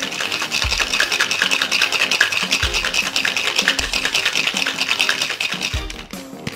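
Ice rattling rapidly inside a Boston shaker as a cocktail is shaken hard to chill and dilute it; the shaking stops just before the end.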